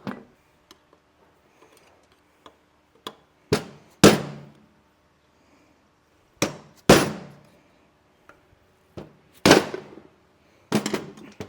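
Hammer blows on a CFMOTO UTV differential being taken apart: several sharp metal strikes, mostly in pairs about half a second apart, each ringing briefly.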